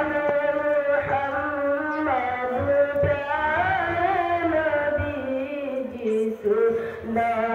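A solo voice chanting a melodic recitation without accompaniment, holding long notes that slide up and down, with short pauses between phrases.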